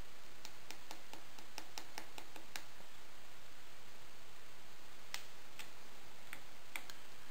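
Screwdriver tapping on the contact-breaker points of a 1980 Honda ATC 110, nudging the loosened plate to close up the point gap. A quick run of light clicks, about five a second, for the first two and a half seconds, then a few scattered single clicks.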